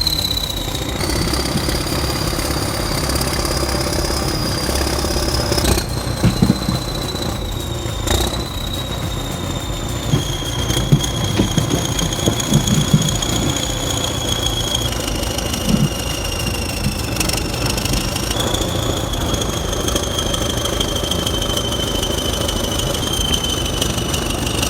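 T-130 crawler bulldozer's diesel engine running steadily, with a high thin whine above it that steps up and down in pitch several times.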